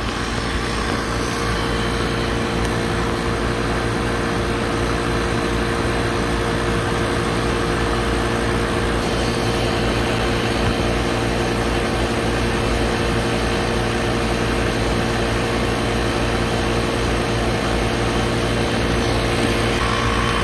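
Inficon refrigerant recovery machine running steadily, its compressor pumping refrigerant out of the leaking circuit into a recovery cylinder, with an even hum.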